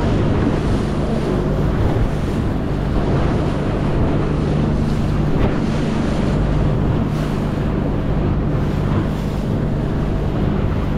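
Outboard motor of a small rigid inflatable boat running at a steady pitch while underway, with water splashing against the hull and wind noise on the microphone.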